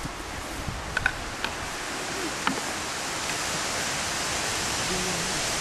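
Wind rushing through the surrounding forest trees: a steady hiss that slowly grows louder, with a few faint clicks in the first couple of seconds.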